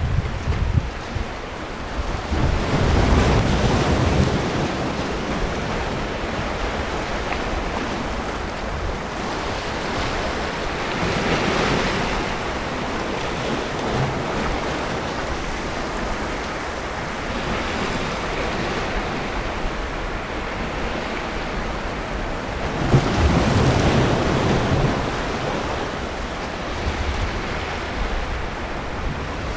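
Sea waves breaking and washing up a beach, a steady surf with louder surges about three seconds in, around eleven seconds, and again near the end.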